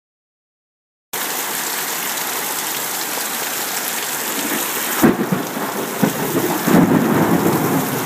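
Heavy rain pouring down in a gully washer, starting abruptly about a second in. Two brief, louder low thuds come about five and seven seconds in.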